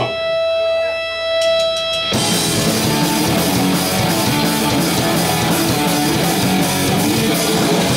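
A steady held electric guitar tone rings for about two seconds, then the full punk rock band kicks in together: distorted electric guitars, bass and drum kit playing a fast song's intro.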